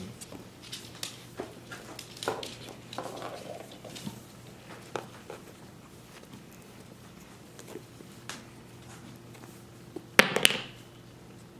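Puppies scampering on a hardwood floor: scattered light clicks and patters of small paws and claws, with crackly rustling from a paper tissue one carries in its mouth. A loud double knock near the end.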